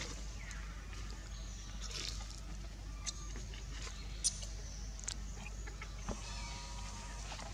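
Outdoor background: a steady low rumble with a few short, high chirps and clicks, the sharpest about four seconds in.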